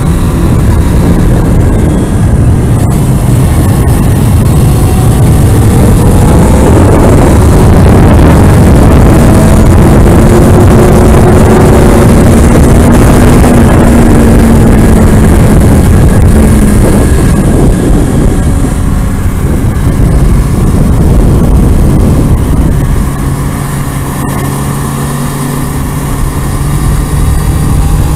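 Kawasaki Ninja ZX-6R's inline-four engine running hard around a track under heavy wind rush, its pitch slowly rising and falling. Near the end it drops for a few seconds to a quieter, steady lower note, then climbs again.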